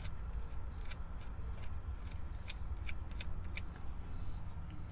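Scattered light clicks and taps from hands fastening a cable onto a 12-volt battery terminal, over a steady low rumble.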